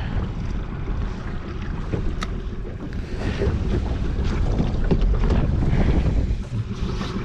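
Wind buffeting the microphone on an open boat, a steady low rumble, with scattered knocks and rattles of fishing gear being handled on the boat's floor and a sharp click about two seconds in.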